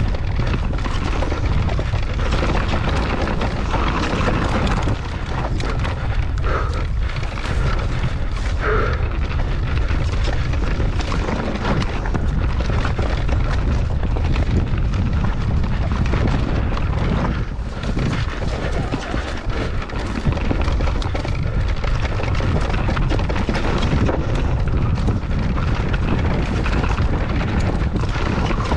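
Wind buffeting the camera microphone during a mountain-bike ride, a steady loud rumble, with tyres running over the trail and frequent short knocks and rattles from the bike over rough ground.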